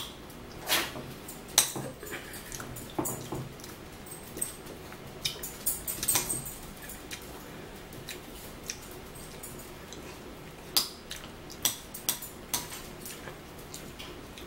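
Close-up eating sounds: chewing and mouth noises from a bite of raw green vegetable, with scattered sharp clicks of a fork against a plate.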